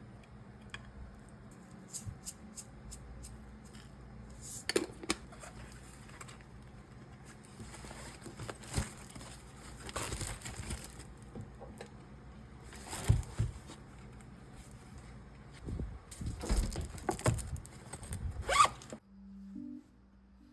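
Scattered kitchen handling sounds: rustling, scraping and light knocks and clicks over a low steady hum, with the loudest handling near the middle and the end.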